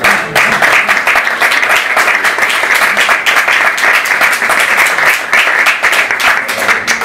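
A small group of people applauding, a steady run of overlapping hand claps.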